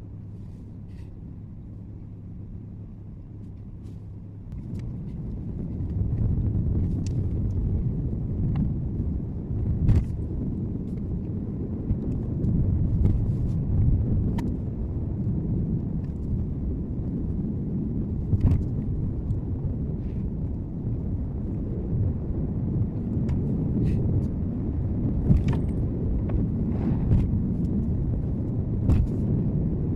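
Car road and engine noise heard through a dashcam inside the car. It is a low rumble that grows louder about five seconds in as the car picks up speed. Scattered short sharp knocks run through it.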